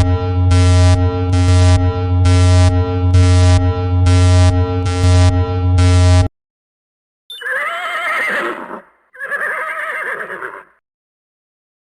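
Horse whinnying twice, each a wavering call about a second and a half long, in the second half. Before that, a steady electronic tone with an even pulsing beat cuts off about six seconds in.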